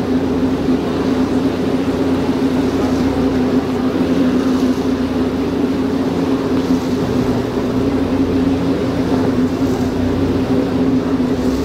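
Steady engine hum of a cruise boat under way, with wind and water noise over it.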